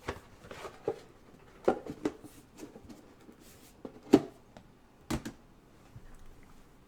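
Hands handling trading cards and their packaging: a handful of short sharp taps and clicks, the loudest about four seconds in, with a softer rustle between them.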